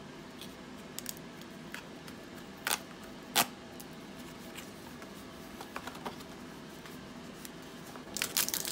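A Pokémon card booster box being opened: scattered light clicks and taps from handling it, the sharpest about three and a half seconds in, then near the end its wrapping crinkling and tearing.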